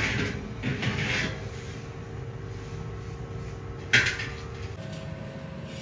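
A steel tractor rim clangs once, sharply, about four seconds in as it is handled out of the hydraulic press, after a couple of short metal scrapes at the start. A steady hydraulic press motor hum runs underneath, its pitch stepping up near the end.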